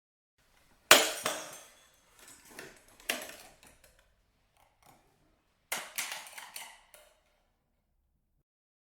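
Glass shattering three times. A sharp crash about a second in, the loudest, is followed by tinkling shards; a second crash comes about three seconds in, and a third near six seconds, each trailing off in a second or so of falling pieces.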